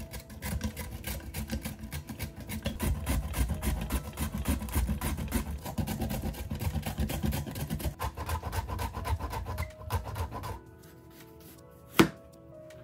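A carrot being shredded on a handheld julienne grater: fast, continuous rasping strokes that stop about ten and a half seconds in. Near the end comes one sharp knock of a kitchen knife cutting through carrot onto a cutting board.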